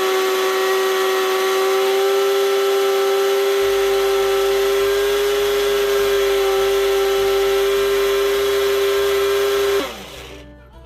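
Electric mixer grinder (mixie) motor running at full speed, grinding dry ginger and black pepper to a fine powder in its dry jar, with a steady high whine. It is switched off near the end, and the whine falls away as the blades spin down.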